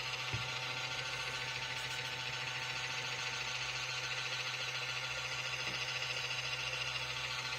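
Steady hum of a small motor with a constant whine, with a brief knock about a third of a second in.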